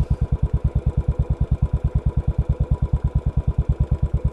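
Royal Enfield Classic 500's single-cylinder four-stroke engine idling at about 1080 rpm, an even beat of about nine exhaust pulses a second.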